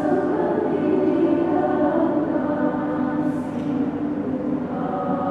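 Women's choir singing in several parts, holding long sustained chords. The voices hiss out an 's' together about three and a half seconds in, and move to a new chord near the end.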